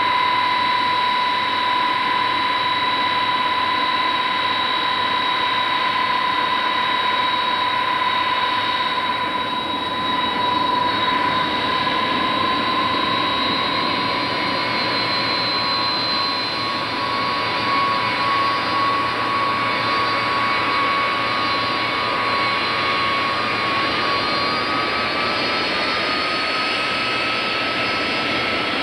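Boeing 747-200 freighter's four jet engines at taxi power: a steady high whine over a continuous jet rush. The whine rises slightly in pitch near the end.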